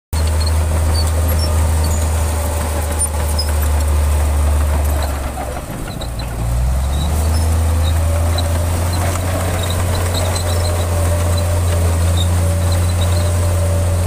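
Shantui crawler bulldozer's diesel engine running under load as it pushes earth, a steady low drone that drops briefly about six seconds in and then picks back up.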